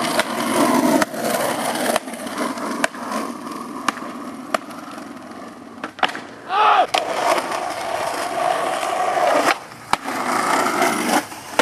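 Skateboard wheels rolling over concrete and asphalt, broken by sharp clacks of the board popping and landing several times. A short voice cries out about two-thirds of the way through.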